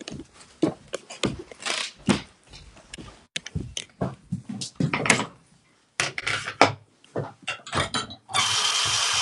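Irregular knocks and rustles of handling, then about eight seconds in a bathroom sink faucet is turned on and water runs steadily into the basin.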